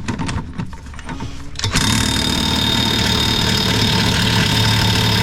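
Impact wrench hammering steadily on a stuck brake-assembly nut, starting with a jolt about two seconds in after a few clicks and running without a break; the nut does not come loose.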